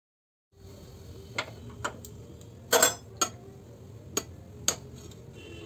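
A metal utensil knocking and clinking against a kadai six times as boiling noodles are stirred in it, the loudest knock a little before the middle, over a steady low hum.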